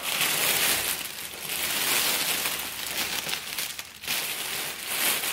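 Clear cellophane gift-basket bag crinkling as a plastic basket is slid into it and the film is handled, with a brief let-up about four seconds in.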